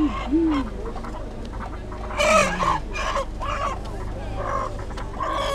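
Market crowd voices and calls heard from inside a slowly moving car over the car's steady low rumble, with one loud, short cry about two seconds in.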